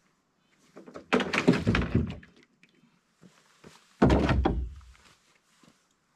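Two heavy thuds about three seconds apart, each trailed by about a second of knocking and rustling, as gear is set down into a wood-strip canoe.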